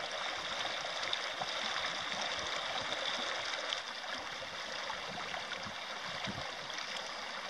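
Shallow stream flowing over rocks, a steady rush of water that becomes a little quieter about four seconds in.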